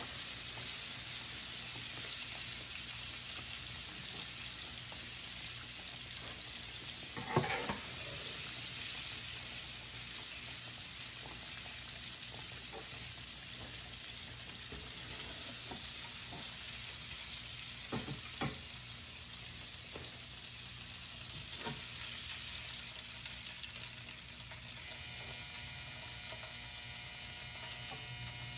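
Battered redfish pieces deep-frying in hot oil in a skillet, a steady sizzle that eases a little near the end, with a few light clicks of a metal spoon against the pan as the done pieces are scooped out.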